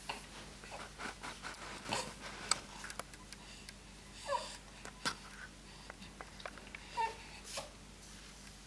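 Baby babbling softly in two short coos, about four seconds in and again near seven seconds, with a few faint clicks in between.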